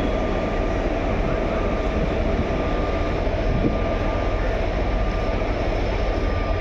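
Steady low rumble with a thin, steady hum: railway platform noise as a train approaches, with faint voices.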